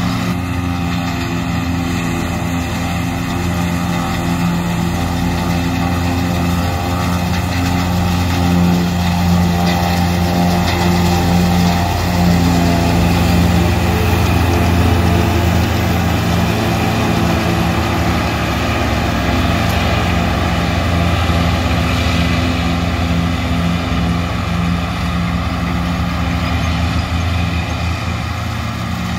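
250 hp New Holland 1900 self-propelled forage harvester running steadily under load as it picks up and chops windrowed hay, with a truck's engine running alongside. It grows a little louder midway as the machine passes close by.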